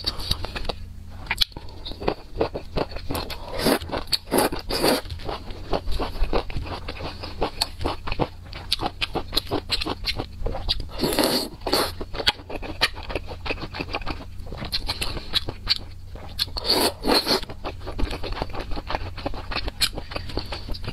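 Close-miked chewing and mouth sounds of someone eating a noodle stew with greens and fish cake: a dense, irregular run of wet clicks and smacks.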